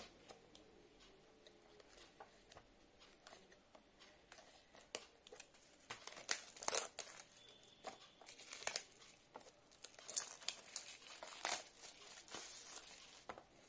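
Clear plastic shrink-wrap being cut with scissors and peeled off a small cardboard box, crinkling and tearing in irregular bursts that grow louder and busier about halfway through.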